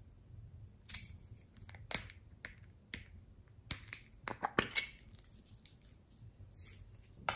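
Small plastic containers being handled, opened and tipped out: a series of sharp plastic clicks and taps, several in quick succession about four to five seconds in.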